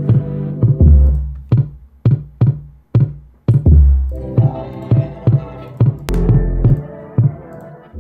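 Music played back through DJ software: a track with a programmed drum beat of deep kicks and sharp snare hits over sustained synth chords, the beat dropping out briefly around three seconds in.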